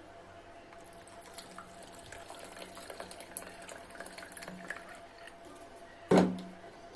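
Water being poured into the plastic water container of a steam vaporizer, a quiet trickling and splashing as it fills to between the minimum and maximum marks, with a short bump near the end.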